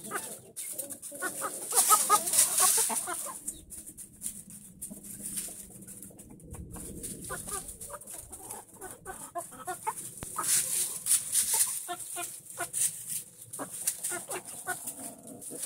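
Chickens clucking softly with many short calls while they scratch and peck through loose wood chips. The chips give a dry, crackly rustle.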